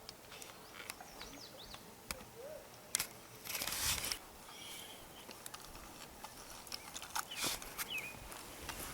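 Quiet outdoor sound with faint bird chirps and scattered small clicks. About three and a half seconds in comes a brief hissing whoosh, the loudest sound.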